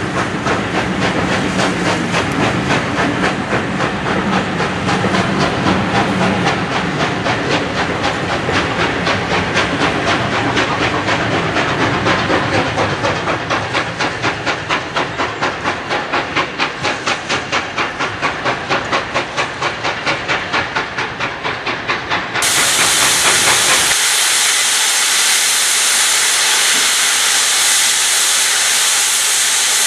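A steam locomotive hauling a train of coaches away, its exhaust beats coming in a steady rhythm and growing slightly fainter. Then steam hisses steadily from a small tank engine standing at a platform.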